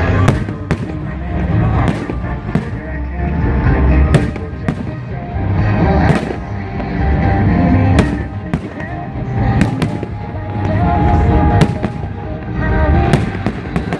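Fireworks going off in a string of sharp bangs, some singly and some in quick pairs or triplets, over music playing.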